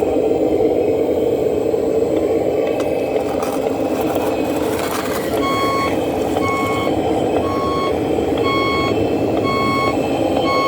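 Radio-controlled model truck running, with a steady engine-like drone; about five seconds in its reversing beeper starts, beeping about once a second as the truck backs up.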